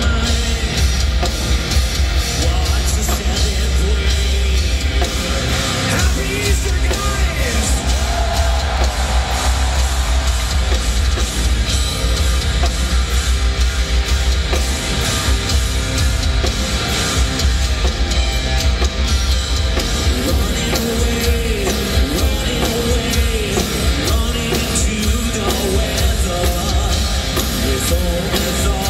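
A heavy metal band playing live, with distorted electric guitar, bass and a drum kit, and the singer's voice rising above them in places. It is a concert recording taken from the audience, heavy and boomy in the low end.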